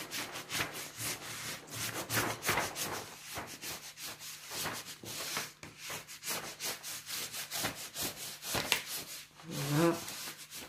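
Quick, repeated rubbing strokes of a small tool over a diamond painting canvas, pressing shifted drills back into line to fix 'rivers' in the rows.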